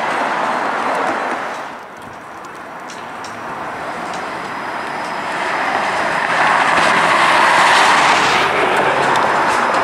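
Street traffic with a Flexity Outlook low-floor streetcar approaching on its rails. The sound grows from about six seconds in as the streetcar comes closer.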